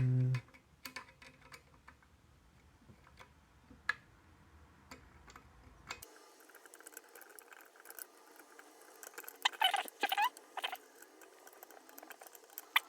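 Scattered light metallic clicks and ticks from a bent-wire pick and screwdriver working the pins of a cabinet lock. About three-quarters of the way in come a few short squeaky chirps.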